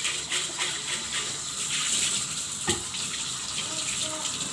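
Tap water running into a sink, a steady splashing hiss, with one sharp knock about two and a half seconds in.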